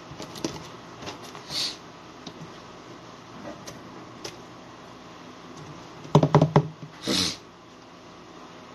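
Handling noise from a clip-on microphone on a shirt collar: a few faint taps and a short rustle, then a quick run of four or five loud knocks about six seconds in, followed by a brief scrape of fabric against the mic.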